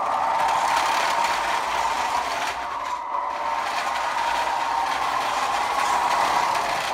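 Small electric drive motor and gearbox of a 1/16-scale radio-controlled tractor whining steadily as it drives, with its wheels rolling and scrubbing on a concrete floor.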